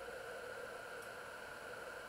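Steady, even hiss with a faint hum underneath and no distinct events, apart from a faint tick about a second in.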